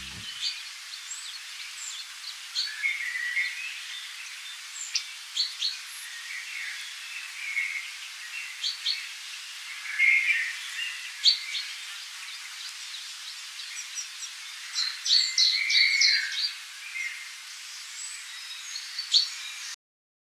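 Several birds chirping and calling in short, scattered notes over a steady background hiss. The sound is thin, with no low end, and it cuts off suddenly near the end.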